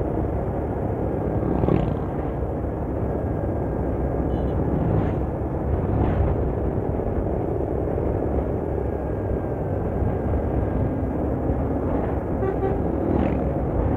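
Steady road and engine rumble of traffic close behind a Mercedes-Benz intercity bus running along the road, with a few short hisses over it.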